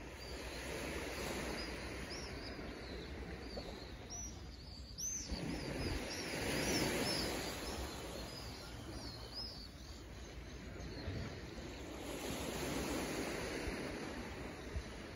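Small sea waves washing against the rocks below, swelling and ebbing about every five to six seconds. A bird chirps repeatedly, high and quick, through the middle.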